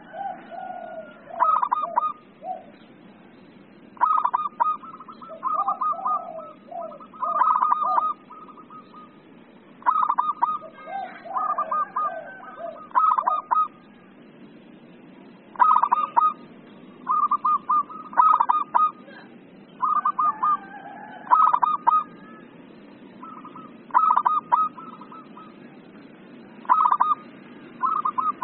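Local-type zebra dove (perkutut) cooing its staccato song: short clipped phrases of rapid notes, repeated every two to three seconds, with lower notes in between.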